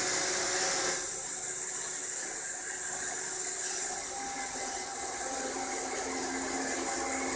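Roomba robot vacuum running: a steady high hiss from its motor with a low steady hum underneath, easing slightly about a second in.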